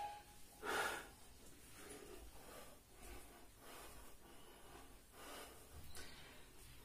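A man breathing hard, puffing out breath after breath as he does repeated side-lying leg raises, with one louder exhale just before a second in.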